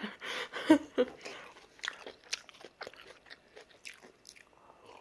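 Close-miked chewing and mouth sounds of eating stir-fried udon noodles with tofu and vegetables: many small wet clicks. A brief vocal sound comes in the first second.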